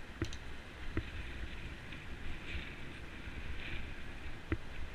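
Bicycle riding along a paved path: a steady low rumble of wind and tyres, broken by a few sharp knocks as the bike jolts over bumps.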